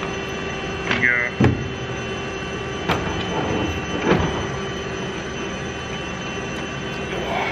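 Plastic headlight housing and grille parts being handled on a metal workbench: a short squeak about a second in, then a few knocks and scrapes, over a steady background hum.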